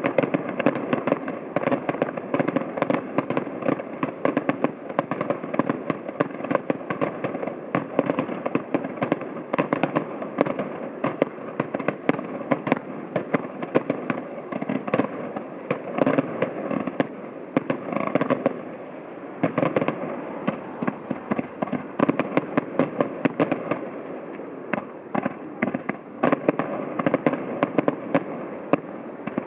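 Distant fireworks display, about a kilometre off: a dense run of bangs and crackling shells, many a second, with a brief lull about two thirds of the way through.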